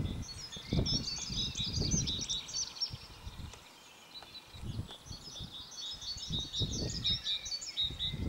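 Small songbirds chirping in quick runs of short notes, in two spells with a pause in the middle, over gusts of wind buffeting the microphone.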